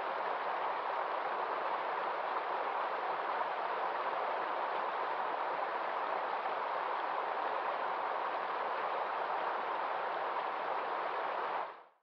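Mountain stream rushing over rocky rapids: a steady, even water noise that fades out just before the end.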